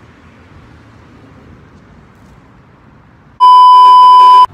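Faint background noise, then about a second before the end a loud, steady, single-pitched beep: the test tone that goes with TV colour bars, used as a glitch edit. It cuts off suddenly.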